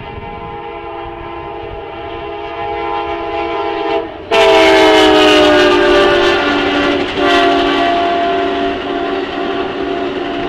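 Amtrak passenger train's locomotive air horn sounding a multi-note chord that grows much louder about four seconds in and drops in pitch as the locomotive speeds past, with a fresh blast about three seconds later. The horn holds on over the rumble and wheel clatter of the passing cars.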